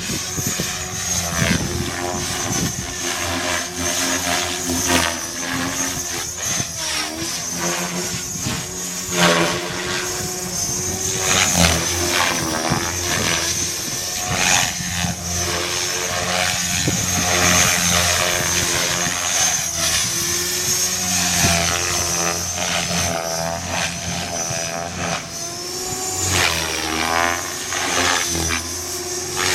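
A DT520e radio-controlled helicopter in flight: a steady high motor and rotor whine whose pitch wavers up and down as it manoeuvres, with a louder blade swish now and then.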